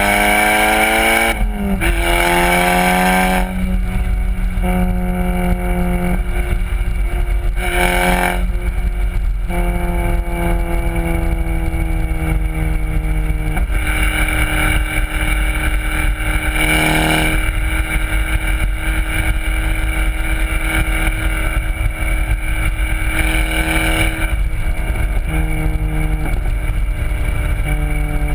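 VW Golf R's turbocharged four-cylinder through a Borla exhaust, driven hard on a racetrack: revs climb twice with a short break between at a gear change, then hold and ease down slowly, with brief breaks near the middle. Steady road and wind rumble runs underneath.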